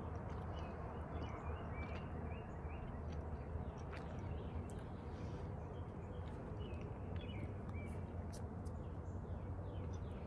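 Outdoor ambience: a steady low background hum with faint small birds chirping on and off, and a quick run of short falling chirps near the end.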